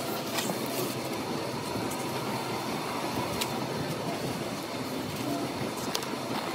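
Steady noisy din of a gym floor with exercise machines running, broken by a few light clicks.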